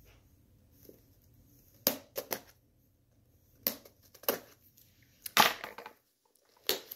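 Cardboard box and its packing being pulled open by hand: a string of about six sharp crunches and crackles with short quiet gaps between.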